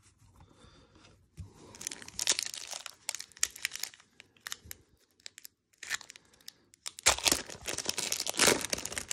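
Foil wrapper of a Pokémon TCG booster pack crinkling and being torn open by hand, in two spells of crackling: one from about two to four seconds in, and a louder one near the end.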